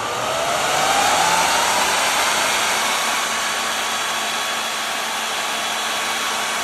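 High-RPM server blower fan on a Vega 64 graphics card spinning up with a rising whine, then running steady at full speed on SATA power, a loud rushing whir.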